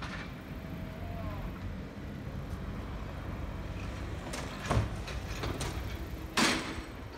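Excavators and dump trucks at a debris-clearing site, their diesel engines running in a steady low rumble. There is a sudden knock about two-thirds through and a short loud hiss near the end.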